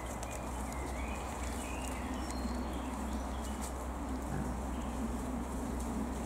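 Wild boars and their piglets grunting low as they move about over forest leaf litter, with a few short bird chirps above a steady outdoor rumble.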